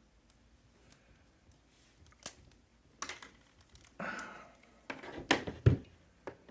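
Hands handling a soldering iron and its parts: a few sharp clicks, a brief scraping rustle, then a cluster of louder clicks and knocks ending in a dull thud.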